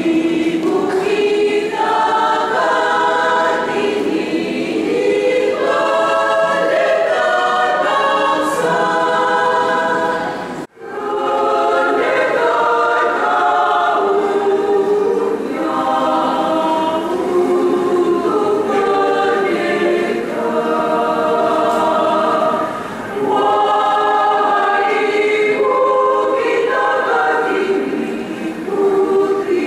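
A women's choir singing together. About a third of the way in the song cuts off abruptly and a different choir's singing starts.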